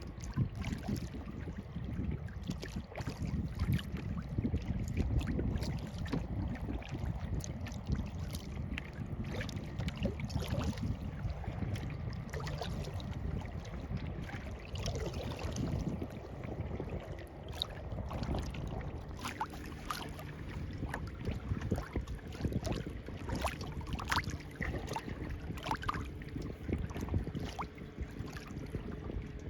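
Kayak paddling on a lake: short, irregular splashes and drips from the paddle and water lapping against the hull, over a low wind rumble on the microphone.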